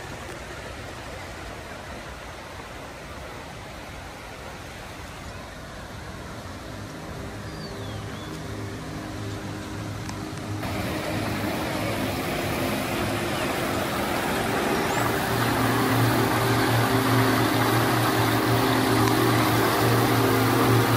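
Steady rush of falling water, growing louder, with a sudden jump in level about halfway through. Steady low tones sound under it in the second half.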